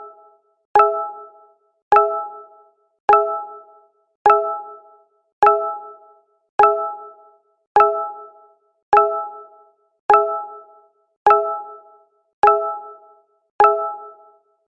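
Google Hangouts notification sound: a short chime of a few tones that starts sharply and fades within about a second, repeated about every 1.2 seconds, about twelve times.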